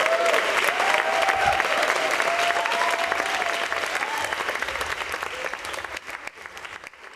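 Audience applauding, with a few voices calling out over the clapping; the applause fades out near the end.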